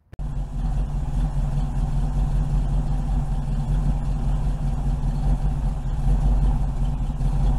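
Mopar 440 big-block V8 engine idling steadily, a low even beat starting just after the sign-off.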